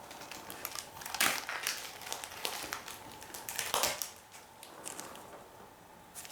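Crinkling and rustling as comic books and their packaging are handled and shuffled, with louder crackles about a second in and just before four seconds.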